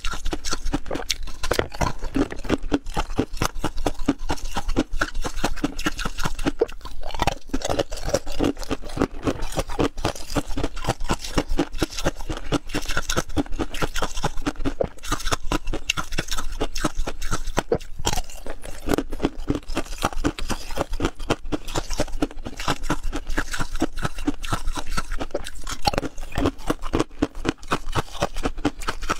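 Close-miked biting and chewing of clear ice cubes: a dense, continuous run of crunching and crackling as the ice breaks between the teeth.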